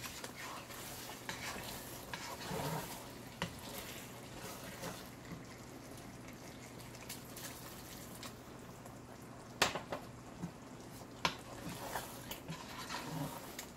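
Wooden spatula stirring thick chicken curry in a nonstick pot, with wet scraping and a few sharp knocks of the spatula against the pot in the second half.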